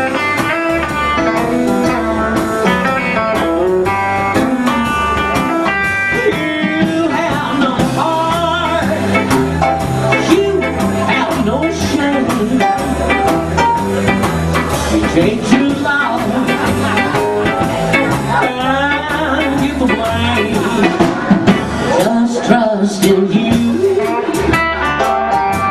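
Live blues band playing an instrumental passage: electric guitar over keyboard, upright bass and drum kit, with a steady beat.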